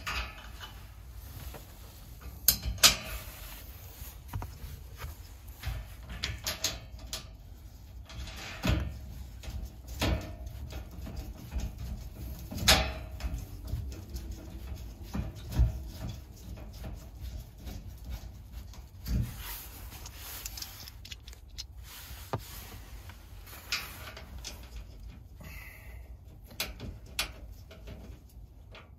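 Scattered clicks and knocks of a black steel MOLLE shelf and its star-shaped knobs being handled and hand-tightened against a metal MOLLE panel, a few of the knocks louder than the rest, over a low steady hum.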